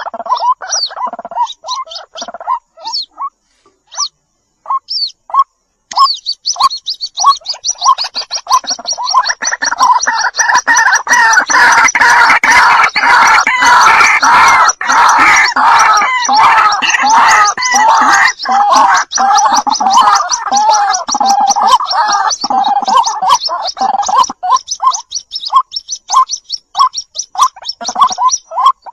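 White-breasted waterhen calling: short spaced calls at first, then, about six seconds in, a fast, dense run of gurgling calls that thickens in the middle and thins back to spaced calls near the end.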